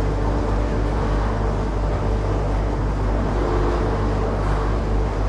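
A steady, unbroken engine drone with a low hum.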